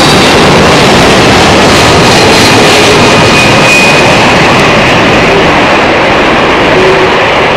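Boeing 767-300ER jet airliner passing low overhead on final approach to land: loud, dense jet engine noise with a steady high whine.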